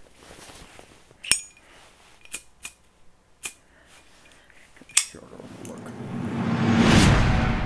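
A handheld cigarette lighter being worked: five sharp metallic clicks spread over a few seconds. Then a whoosh that swells to a loud peak near the end and begins to fade.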